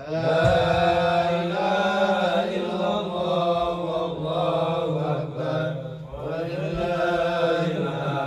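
A man chanting Qur'an recitation in Arabic into a microphone, in long melodic phrases with held, wavering notes; a new phrase begins about six seconds in.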